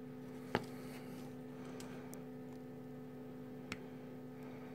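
Faint steady electrical hum, with two light clicks from the tweezers and soldering iron tip against the circuit board: one about half a second in, one near the end.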